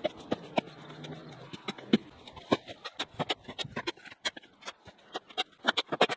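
Quick, irregular clicks, knocks and scrapes of a garden rake working cut weeds and branches, with debris tipped into a galvanised metal bin.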